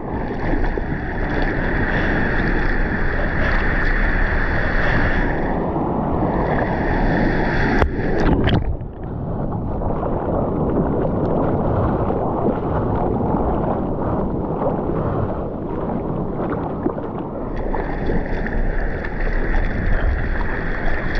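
Sea water sloshing and splashing over a camera held at the surface as a bodyboarder paddles through broken waves, with whitewater washing past. A couple of sharp hits of water come about eight seconds in.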